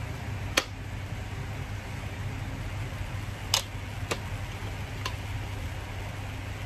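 An MSA fibreglass helmet being handled: four short, sharp clicks and knocks from the shell and its suspension, the first two the loudest, over a steady fan hum.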